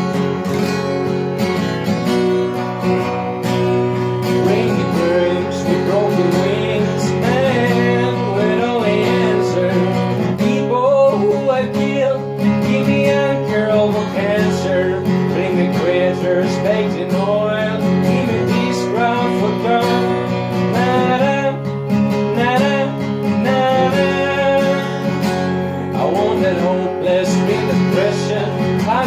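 Music: strummed acoustic guitar chords with a wavering melody line above them from about six seconds in.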